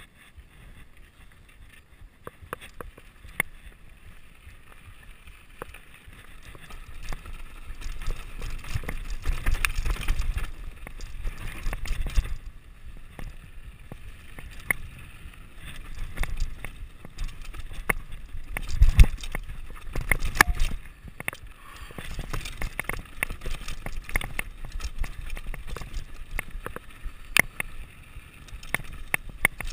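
Mountain bike descending a rocky, gravelly trail: tyres crunching over stones, with many sharp clicks and knocks of bike rattle and a low rumble that swells on the rough sections. The trail chatter is quieter for the first few seconds and louder from about seven seconds in.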